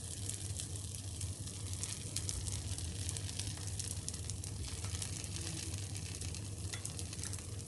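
Batter frying in a hot appe pan on a gas stove: a steady sizzling hiss with fine crackles, over a steady low hum.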